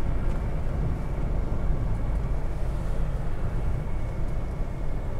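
Steady road and engine noise heard inside a car cruising at expressway speed, its tyres running on a wet road surface.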